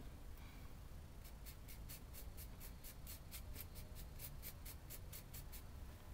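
Small stiff paintbrush dry-brushing red paint onto a textured diorama brick wall: faint, quick scratchy strokes, about four or five a second, for several seconds, then stopping near the end.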